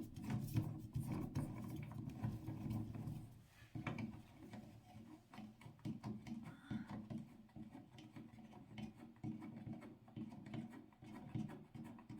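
Faint, irregular rubbing and scraping with light clicks: hands and tools working the old light switch out of its wall box.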